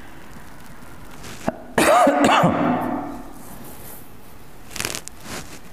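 A man coughs once, a short harsh burst about two seconds in. A few faint clicks follow near the end.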